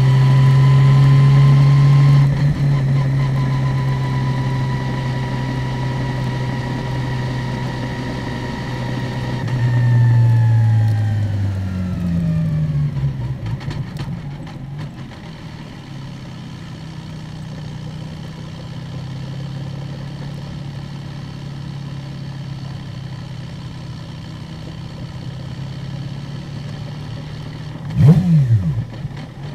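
Open-wheel single-seat race car's engine, heard from on board, running steadily at part throttle in third gear with a high whine above it. About ten seconds in, engine and whine fall in pitch together as the car slows toward walking pace, and the engine settles to low, steady revs. Near the end a quick throttle blip rises and falls, the loudest moment, as the driver downshifts to second.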